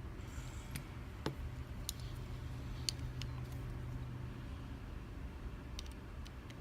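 Scattered small metallic clicks and scrapes as a tool works at the circlip on the back of a Thirard Trafic 6 dimple euro cylinder, over a steady low hum.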